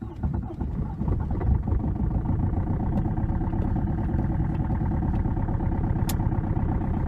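Car engine being cranked in severe frost, turning over and firing roughly as it tries to catch.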